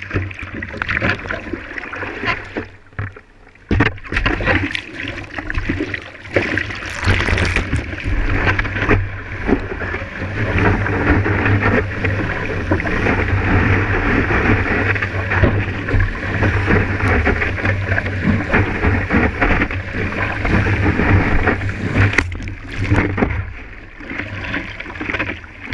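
Sea water rushing and splashing against a surfboard and the GoPro on its nose while the board is paddled and ridden on a wave. Under it runs a heavy, choppy rumble, with a sharp knock about four seconds in and a steadier, louder rush through the middle.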